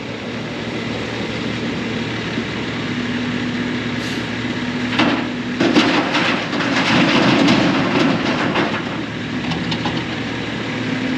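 Demolition of an old building: rough crunching and clattering that grows loudest from about five to nine seconds in, over a steady engine hum.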